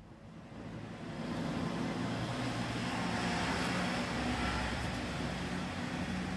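A steady machine hum with a wide hiss, growing louder over the first second or so and then holding steady.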